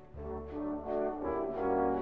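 Background instrumental music: a slow melody of held, brass-like notes.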